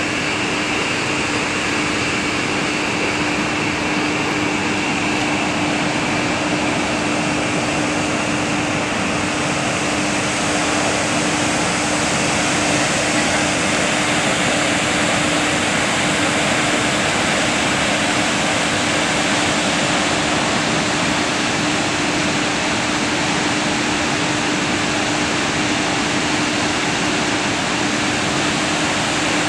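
Water thundering out of the Hume Dam outlet during a release, a steady roar of churning white water, with a steady low hum running under it.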